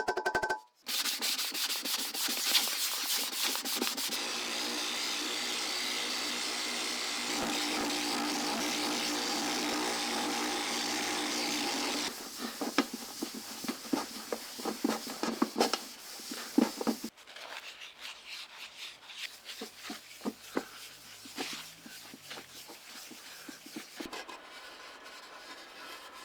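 Sanding by hand: a steady rubbing scrape that runs on for several seconds, then gives way to quicker, separate scraping strokes and light taps.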